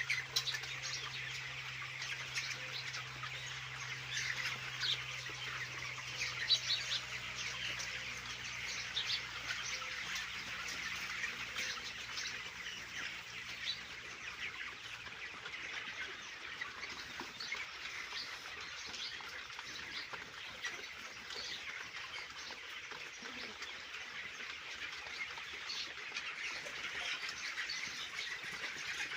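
A large flock of 30-day-old broiler chickens makes a dense, continuous chatter of overlapping cheeps and chirps. A low steady hum runs underneath and stops about halfway through.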